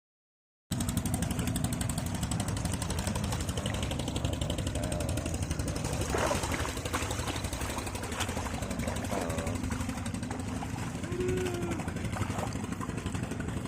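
A small engine running steadily with a fast, even chugging pulse, cutting in abruptly about a second in, with faint voices over it.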